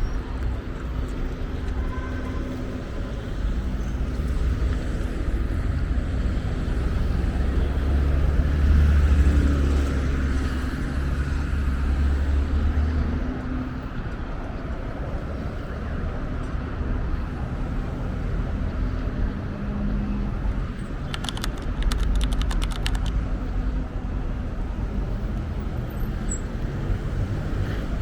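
Street traffic: a continuous rumble of passing cars and engines, with one vehicle passing louder about a third of the way in. A short run of rapid clicks comes near the three-quarter mark.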